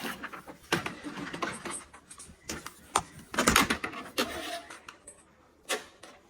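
Handling noise from a Dyson stick vacuum with its motor off: a string of irregular plastic clicks, knocks and rustles, busiest around the middle and dying away near the end.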